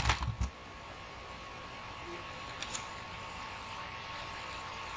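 Steady low microphone hiss with a faint constant tone, and a couple of soft computer keyboard key clicks a little past halfway as letters are typed.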